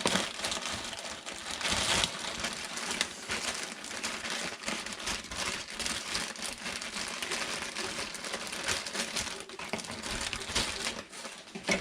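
Plastic rustling and crinkling with many small clicks and knocks, as of rummaging through bagged plumbing fittings.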